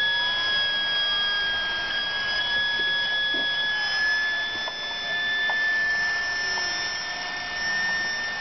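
Homemade turbojet engine built from a Subaru turbocharger, spinning with a steady high whine but not yet lit, with a few faint pops in the background.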